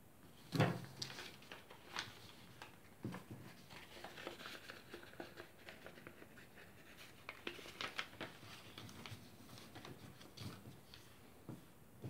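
A sheet of origami paper being folded and creased by hand, crackling and rustling in short spells, with a knock, the loudest sound, about half a second in.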